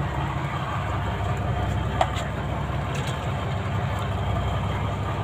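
A boat engine running with a steady low drone, with a couple of faint clicks about two and three seconds in.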